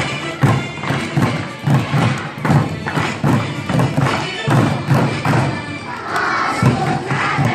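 Bucket drumming: wooden drumsticks beating upturned plastic buckets in a steady rhythm of low thumps, about two to three strikes a second.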